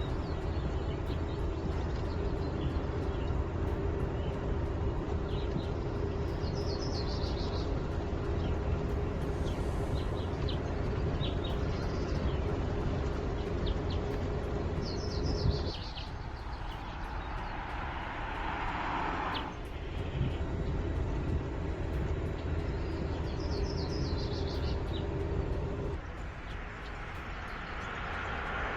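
Steady low road and tyre rumble of a vehicle on the move, with birds chirping. The rumble drops away abruptly about halfway; a vehicle's tyre whoosh then swells and fades as it passes, and the rumble returns before stopping again shortly before the end.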